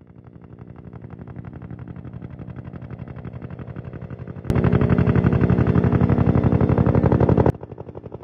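Helicopter rotor beating rapidly over the drone of its engine. It fades in, then jumps abruptly louder about halfway through for some three seconds before dropping back to the earlier level.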